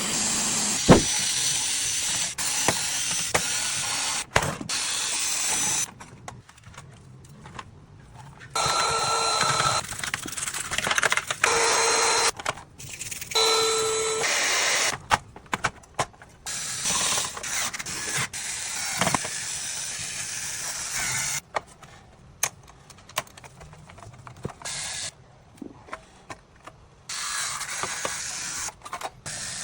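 Air duster blowing dust out of a PS5's insides in repeated hissing blasts that start and stop abruptly, with small clicks and knocks of tools on the console's parts in the gaps.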